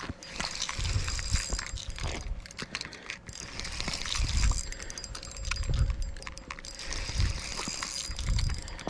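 Spinning reel being cranked in on a hooked fish, with runs of quick clicking from the reel and irregular low rumbles of handling on the body-worn microphone.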